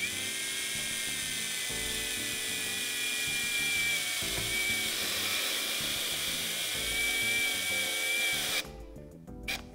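Power drill driving a reduced-drill-point self-drilling screw through thin sheet metal, about a millimetre thick, with a hex socket: a steady high-pitched motor whine with grinding drilling noise, cutting off suddenly about eight and a half seconds in as the screw head seats. A short click follows near the end.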